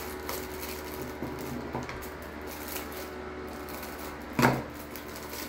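Small plastic fidget toy and its plastic wrap being handled and cut at with scissors: a few small clicks, then one sharp clack about four and a half seconds in.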